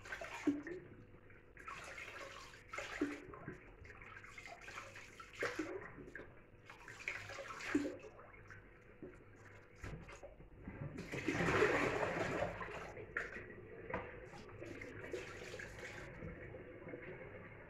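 Water splashing and sloshing in a basin as raw mutton is washed by hand under a kitchen tap, in irregular splashes, with a louder stretch of splashing about two-thirds of the way through.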